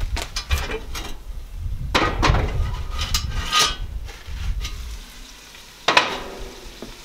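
Cast-iron camp oven being shifted and set back on the wood stove's hotplate: scraping and several sharp metal clanks, the sharpest near the end, with a light sizzle from the pot.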